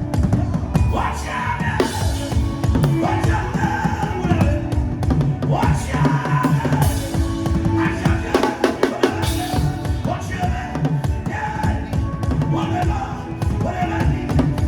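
Drum-led music: fast, dense drumming with a continuous stream of strokes, and a melody gliding over it.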